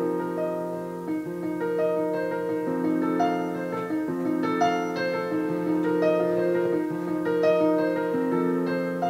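Piano accompaniment playing an instrumental interlude between sung verses. Slow sustained chords sit under a melody of single struck notes, about two notes a second.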